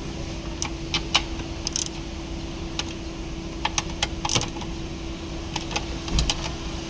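Light metallic clicks and clinks of small bolts and hand tools being handled, irregular and a few to a second at most, over a steady hum.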